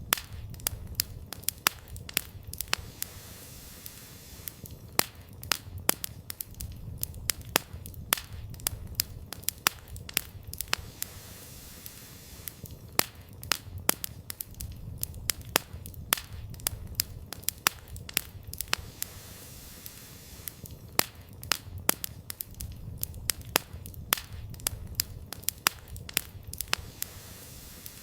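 Wood campfire burning, with frequent irregular sharp crackles and pops from the firewood over a low steady rumble of the flames.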